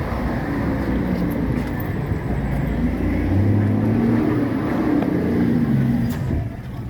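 A motor vehicle's engine running with road noise, a low hum whose pitch shifts a little, dropping off near the end.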